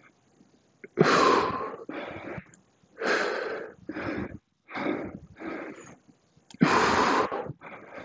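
Heavy breathing of a man straining through dumbbell Romanian deadlift reps. He takes four loud, forceful breaths about two seconds apart, each followed by a shorter, quieter one, in time with the lifts.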